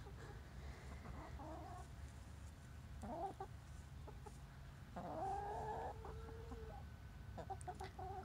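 Hens bukking and clucking: a few short calls, a rising call about three seconds in, a longer drawn-out call about five seconds in, and a cluster of short clucks near the end.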